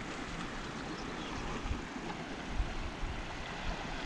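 Wind blowing over the microphone: an uneven low rumble over a steady hiss.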